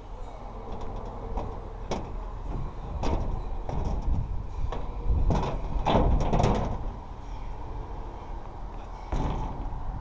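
Footsteps on loose, rusted steel deck plates, the sheet metal clanking and rattling underfoot with scattered sharp knocks. Around the middle the steps push into dry grass and dead stems, and this is the loudest stretch. A steady low rumble runs underneath.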